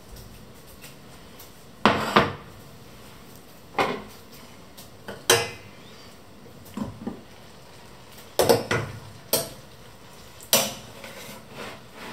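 Stainless steel pots, a pot lid, a china plate and a knife being handled on a glass-ceramic hob: a string of separate clinks and knocks every second or so. One clink, about five seconds in, rings briefly like metal.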